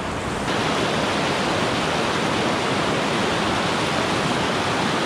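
Mountain creek rushing over boulders and small cascades: a steady wash of water that steps up slightly about half a second in.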